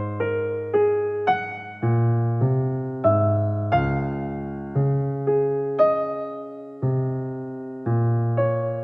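Background music: a slow, gentle piano melody over low chords, with notes struck about twice a second and left to fade.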